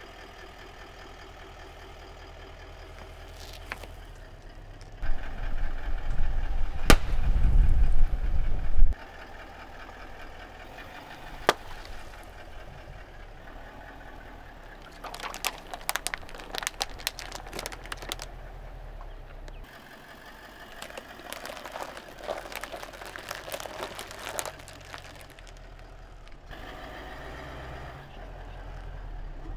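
A car engine idling as its tyre rolls slowly over small objects on concrete. A louder low rumble runs from about five to nine seconds in. Later come two spells of rapid crackling and popping as thin plastic cups of water crack under the tyre.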